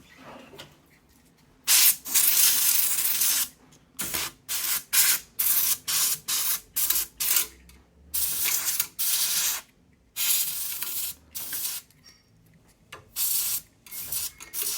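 Can of compressed air spraying into a computer case in repeated blasts of hiss. One longer blast comes about two seconds in, followed by a string of short puffs and a few longer ones.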